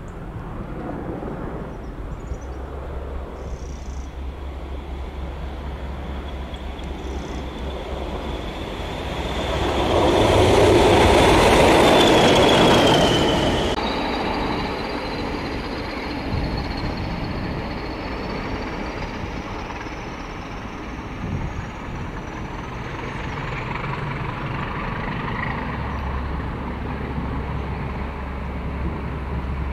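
Train passing close by, loudest about ten to fourteen seconds in, over a steady low hum. A high whine rises in pitch through the second half.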